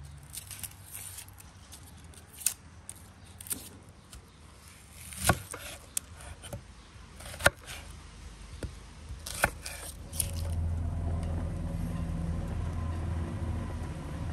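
Kitchen knife cutting onions on a wooden board: scattered sharp knocks and cuts, the loudest about five and seven seconds in. About ten seconds in, a large pot of lamb offal boiling takes over as a steady low rumble.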